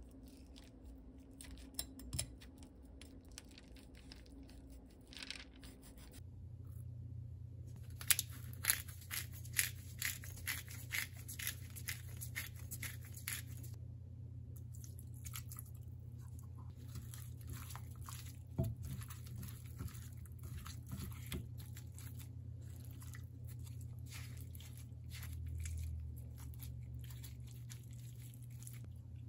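Raw chicken drumsticks being cut with a knife and then handled in a glass bowl: crisp crunching and tearing clicks, thickest in a run around the middle, over a steady low hum.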